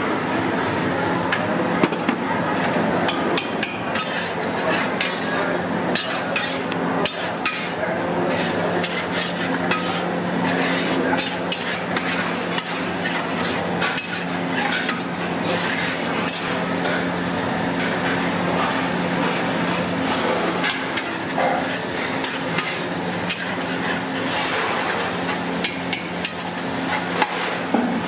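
A metal ladle stirring and scraping a frying masala in a large iron kadai, with frequent clicks and knocks of metal on iron. Under it are the sizzle of frying and a steady low hum.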